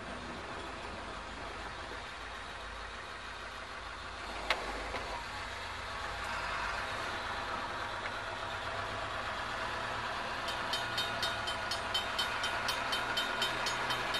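Approaching Norfolk Southern snow-plow train: a steady low rumble that slowly grows louder, with one sharp click about four and a half seconds in. About ten seconds in, a grade-crossing bell starts ringing, about three or four strokes a second.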